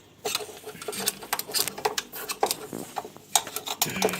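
Irregular light clicks and knocks of a washing machine shock absorber and its small parts being handled and checked by hand.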